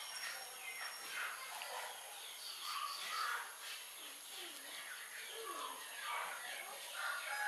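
Birds chirping busily in the background, many short calls overlapping.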